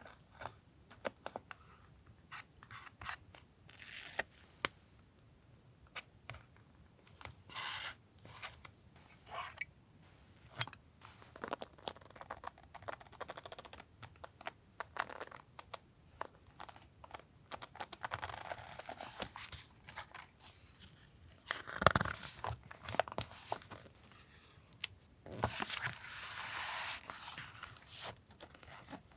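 Paper and stickers handled in collage journaling: scattered light taps and clicks, with several stretches of paper rustling and tearing, the longest near the end.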